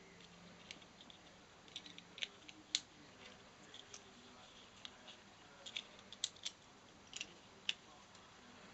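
Small, sharp plastic clicks and taps, irregular and faint, from a Ford remote key fob being handled and worked apart or snapped together during a battery change.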